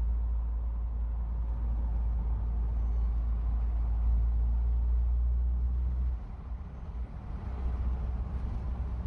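Steady low rumble that drops away about six seconds in, then builds back up.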